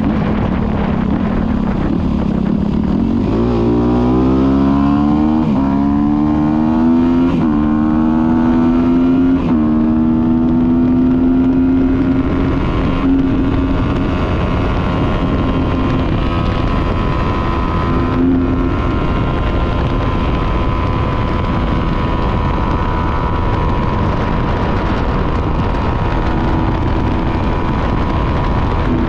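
Motorcycle engine pulling up through the gears, its pitch climbing and dropping back at each of several shifts in the first ten seconds, then holding a steady cruise, with wind rush on the microphone.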